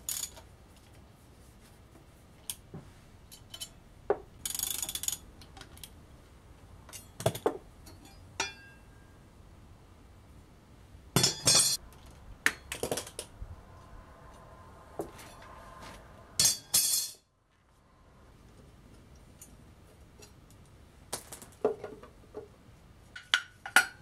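Metal hand tools and steel bolts clinking and knocking as a motorcycle brake disc is unbolted from its wheel, with scattered sharp clinks and a few short rasping bursts.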